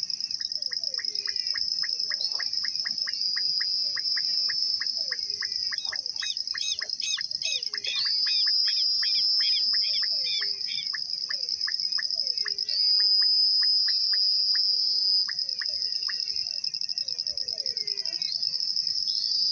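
A dusk chorus of calling animals at a pond. A continuous high-pitched insect trill runs throughout. Over it come repeated low, falling calls and a fast series of short clicks, about four a second, which turn into louder ringing chirps for a few seconds midway.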